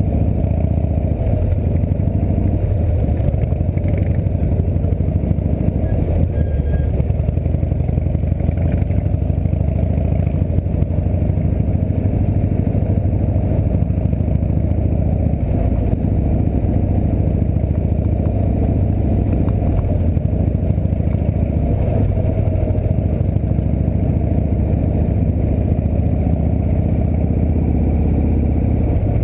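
Harley-Davidson V-twin engine of a chopper trike running steadily while it rides at low speed.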